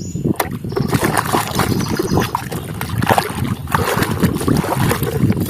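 Water sloshing and splashing in uneven strokes as a muddy toy is washed by hand.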